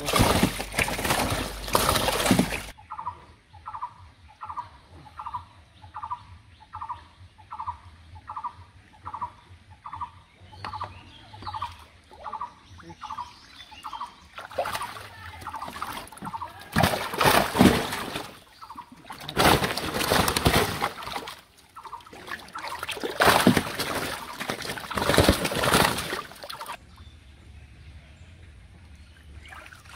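Pond water splashing as a dip net full of thrashing fish is lifted out and tipped onto a tarp in a boat, in loud bouts at the start and again through the second half. In between, a short call repeats about one and a half times a second for some ten seconds.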